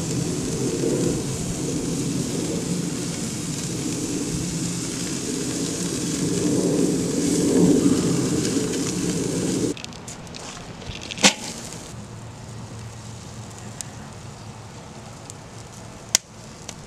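Meat sizzling on a charcoal grill under a loud, steady low rumble that cuts off abruptly about ten seconds in. After that a quieter grill sizzle goes on, broken by two sharp clicks.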